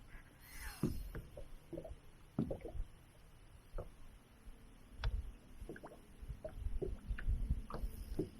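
Scattered knocks and low thumps of handling in a fishing boat while a big smallmouth bass is being fought and landed, with a short rush of splashing water about half a second in and a denser run of thumps in the second half.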